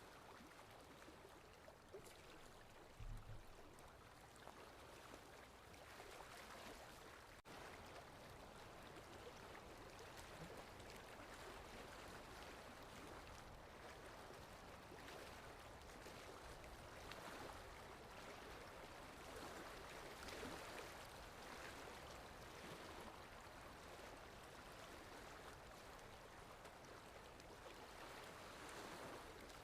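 Faint, steady wash of sea waves, swelling and easing slowly, with a brief low thump about three seconds in.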